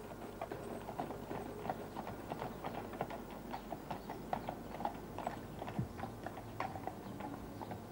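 Horse's hooves clip-clopping: a continuous run of irregular hoof-strikes at a steady level.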